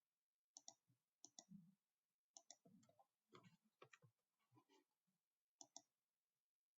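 Faint computer keyboard and mouse clicks, a dozen or so short clicks at irregular spacing, several in quick pairs, as a short comment is typed and entered.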